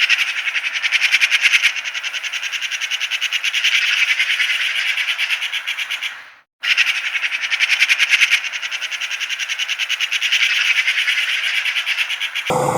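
Rapid, evenly pulsed bird chirping that fades out and stops for a moment about six seconds in, then starts again the same way.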